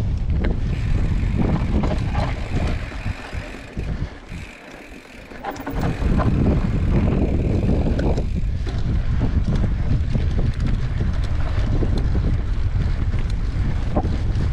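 Wind buffeting the microphone as a cross-country mountain bike is ridden along a trail, with scattered clicks and rattles from the bike. The wind drops away for a couple of seconds about four seconds in.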